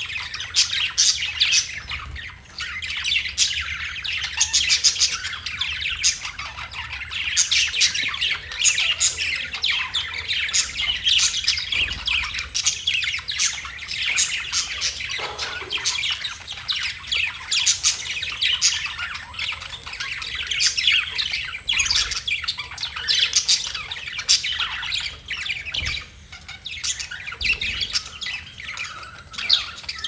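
Several budgerigars chattering: a dense, unbroken run of quick chirps, warbles and squawks.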